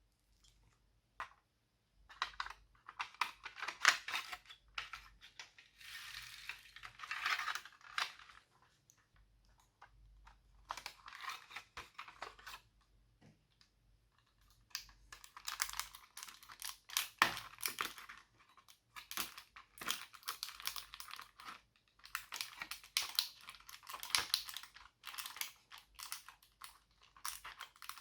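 Hands squishing and stretching slime, a dense run of crackling, clicking pops in several bursts, with short pauses between them.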